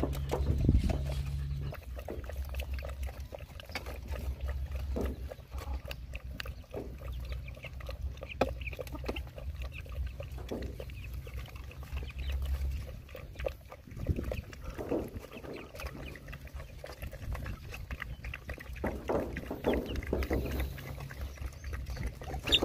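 Puppies and adult dogs eating soupy food from a small bucket: wet lapping, slurping and chewing with many small clicks, over a low steady rumble.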